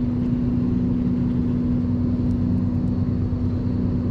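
A steady low mechanical hum at one constant pitch, over a low rumble.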